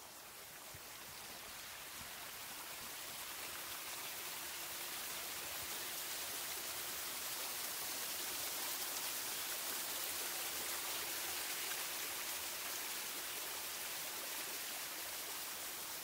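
Small waterfall splashing down over rocks into a pool, a steady rushing of water that grows louder over the first several seconds and then holds.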